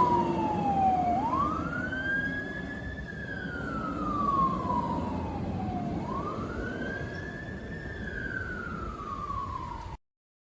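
Pierce Enforcer fire engine's siren wailing. It rises quickly, holds high and slides slowly back down, about twice, and gets gradually fainter before cutting off abruptly near the end.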